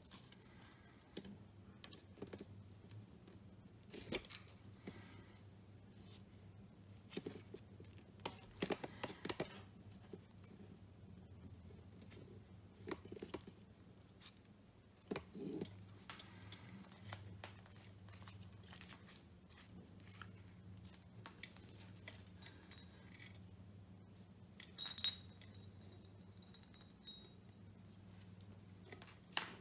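Faint clicks and small metallic rattles of a hose clamp and metal hose tip being handled and fitted onto a braided plastic hose, over a low steady hum.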